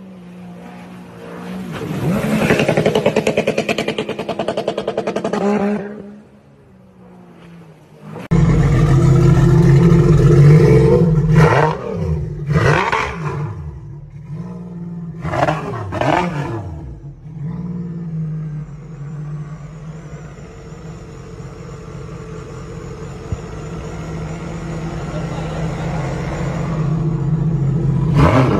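Jet ski engine running as the craft speeds across the water, fading out about six seconds in. About eight seconds in, a jet ski engine starts abruptly while run out of the water on a garden-hose flush, is revved up and down several times, then runs steadily.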